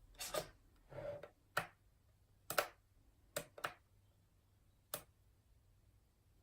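Sharp clicks of a radio-control transmitter's three-position toggle switch being flicked down and back up to step the warning beacon through its flash patterns. There are about seven clicks, irregularly spaced over five seconds, with a short rustle about a second in.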